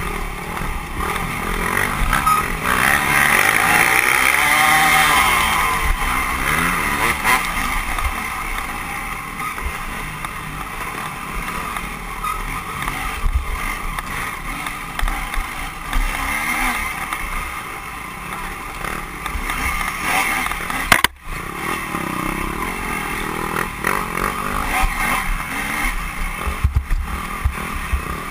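Onboard sound of a dirt bike racing along a wooded trail: the engine revs up and down continuously as the rider works the throttle, with wind and rattle over the microphone. The sound cuts out for a split second about three-quarters of the way through.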